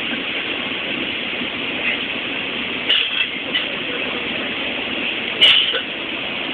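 Train carriage running, heard from inside the cabin as a steady rumble, with a short knock about three seconds in and a louder sharp click about five and a half seconds in.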